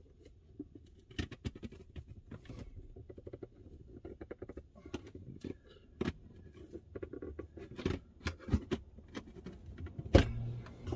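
Irregular small clicks, taps and rustles of hands working plastic dash trim and wiring, with a louder knock near the end.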